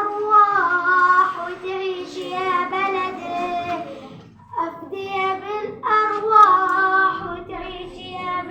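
A young boy singing solo without accompaniment: long, wavering held notes in two phrases, with a short breath about four and a half seconds in.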